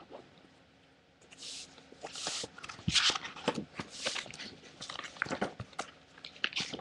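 Irregular rustling and scraping starting about a second in: paper and drawing supplies being handled.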